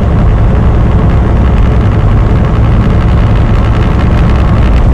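Steady low engine and road drone inside the cab of a Volvo semi truck under way.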